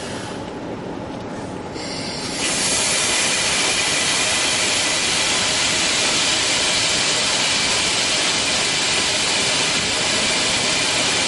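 EPL2T electric multiple unit at a station platform, a low rumble at first. About two seconds in, a loud steady hiss comes in abruptly and holds unchanged.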